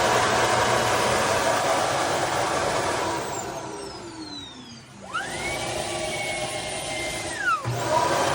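Shark cordless vacuum running with a loud rushing suction noise. About three seconds in the motor winds down with a falling whine. A motor then spins up to a steady high whine, holds for about two and a half seconds and winds down, and the loud suction noise starts again near the end.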